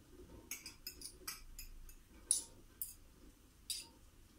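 Light, irregular clicks and taps, about eight over three seconds, from a small glass dish knocking against a ceramic mixing bowl as chopped ingredients are tipped into it.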